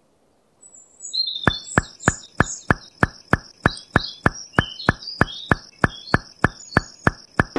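Steady, evenly spaced knocking, about three knocks a second, starting about a second and a half in, with birds chirping over it.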